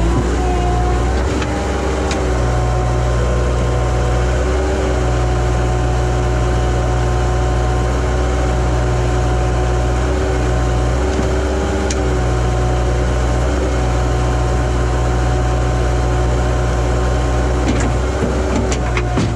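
Bobcat tracked skid steer's diesel engine running steadily under work, with a steady whine riding over the low engine hum that shifts slightly in pitch as the hydraulics work the bucket. A few brief clicks near the middle and toward the end.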